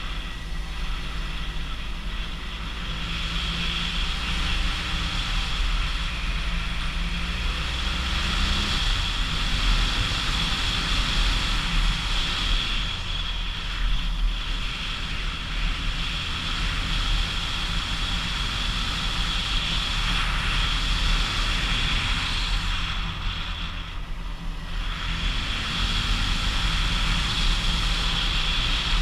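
Motorcycle engine running steadily under load on a climb, its note changing about nine seconds in, under a constant wind rush over the microphone.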